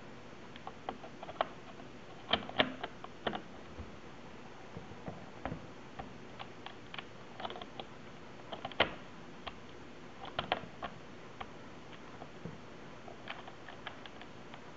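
Irregular small clicks and taps from hands handling a camera body, lens adapter and lens while turning the adapter's knurled metal thumbwheel and seating the lens, some in quick clusters, over a faint steady hiss.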